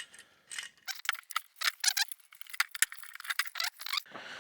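Small metal parts and hand tools clinking and rattling as they are handled: a quick, irregular run of sharp metallic clicks and jangles.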